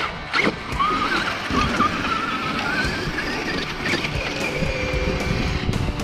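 Brushless electric motor of a Traxxas RC monster truck whining, its pitch rising over a few seconds as the truck accelerates up a sand pile, then settling lower near the end. A knock about half a second in.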